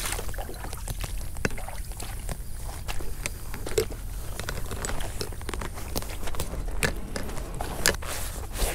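Footsteps crunching over the ground: an irregular run of small crunches, clicks and crackles.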